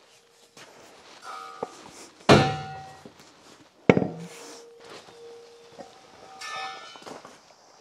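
Steel welding gas cylinders being handled: two heavy metallic knocks, about two seconds in and again near four seconds, each with a brief bell-like ring, among lighter knocks and scrapes.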